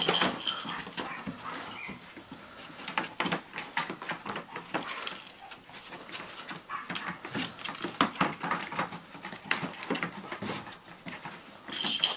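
A litter of cockapoo and cocker spaniel puppies playing: many small clicks, knocks and rustles as they scuffle among toys, with occasional short whimpers.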